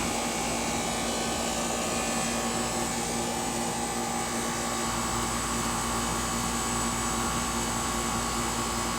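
3.5-ton air conditioner condensing unit running steadily, its compressor and condenser fan giving an even hum with a few constant tones. The system is partway through being topped up with refrigerant for a low charge.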